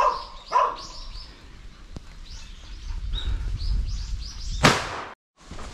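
A hunting hound barks twice at the start, followed by a run of quick, high chirps. About four and a half seconds in comes one sudden loud burst of noise, and then the sound drops out for a moment.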